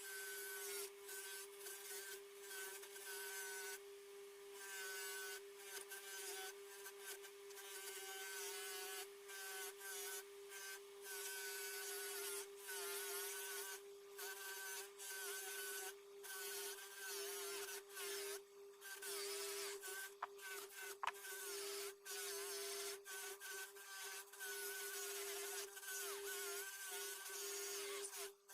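Axminster polishing machine's motor running with a steady high whine while parts are buffed, the sound chopped by frequent abrupt cuts.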